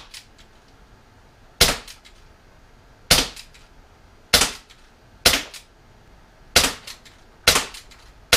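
Umarex H&K USP CO2 airsoft pistol firing 6mm BBs in slow succession: about seven sharp pops, a second or so apart, each with a short ring-out. It is a non-blowback, double-action pistol, so each shot is a bare gas pop with no slide cycling.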